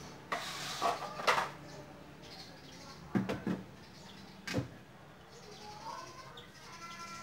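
Wooden planks being handled and set down, giving a few clattering scrapes and then separate hollow knocks of wood on wood.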